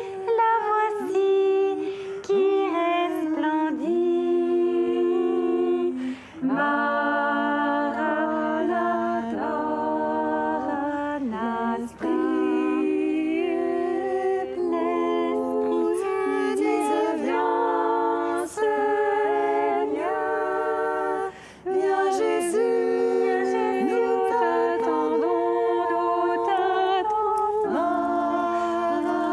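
A cappella singing: several voices in harmony holding long chords, with short breaks for breath every few seconds.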